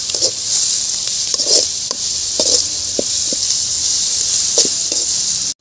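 Chopped onions, mint and curry leaves sizzling in hot oil in a metal kadai, with short scrapes and taps of a metal spatula against the pan as they are stirred.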